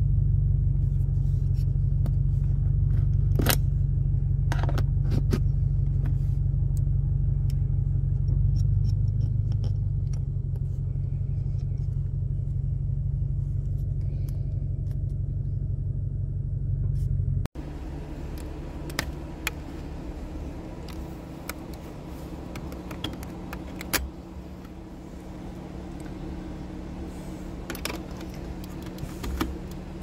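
Steady low rumble of a car heard from inside the cabin, with a few light clicks and taps. A little over halfway it cuts off abruptly, giving way to a quieter steady hum with more scattered clicks.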